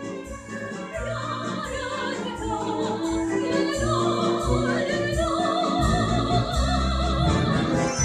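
Opera music: a classical voice singing with vibrato over orchestral accompaniment, swelling after about a second.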